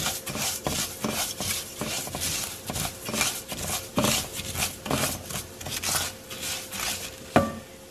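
A spatula stirring dry rice as it toasts in a pot: the grains rustle and the spatula scrapes across the pot in quick repeated strokes, a few a second, with one louder scrape near the end. This is the toasting stage of the rice, kept moving so it does not burn.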